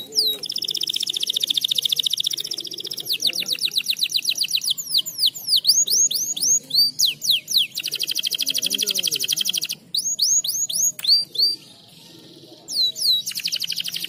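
Domestic canary in breeding condition singing: fast trills of rapidly repeated notes alternating with runs of high, sweeping whistled slurs, with a short pause near the end.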